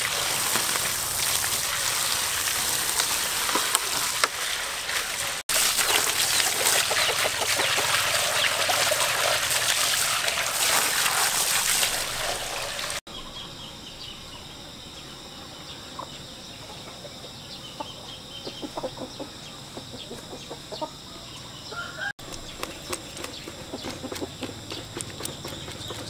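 A garden hose spraying water onto raw beef in a woven basket, a loud steady rush. About halfway through it gives way to a much quieter stretch of small ticks, with a knife scraping hair off the oxtail hide near the end.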